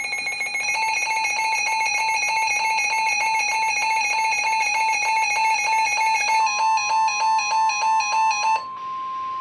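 Emergency alert tones announcing a tropical storm warning: a rapid run of repeating electronic beeps, joined about six seconds in by a long steady single-pitch warning tone that carries on alone after the beeps stop near the end.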